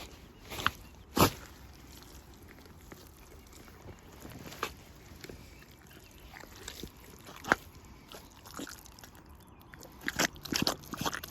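Rubber boots squelching and sucking in wet mud: a few separate sharp squelches a few seconds apart, then a quicker run of them near the end.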